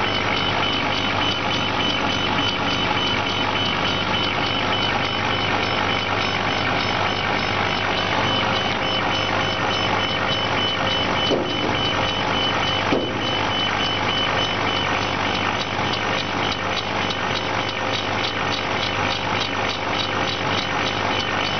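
4060 laser engraving machine running while it engraves a glass cup turning on its rotary attachment: steady machine whirring and hum with a high steady whine. The laser head shuttles back and forth, giving a fast, even pulsing in the second half, with two brief clicks around the middle.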